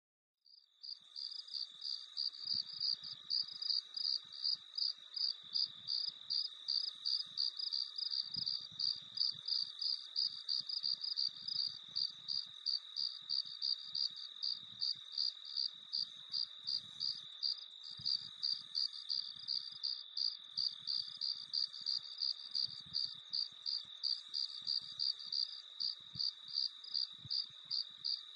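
Crickets chirping in a steady, even rhythm of about three high-pitched chirps a second, fading in about a second in.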